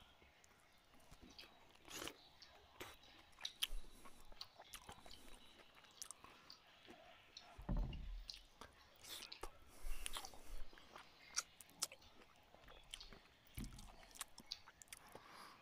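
A man eating rice and curry by hand: faint chewing with irregular soft clicks and wet mouth noises, mixed with his fingers working rice on a steel plate.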